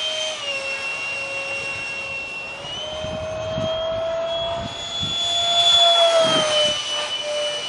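A 70mm electric ducted fan on an RC foam jet whining steadily. Its pitch dips about half a second in, then climbs with the throttle and is loudest around six seconds in before dropping again.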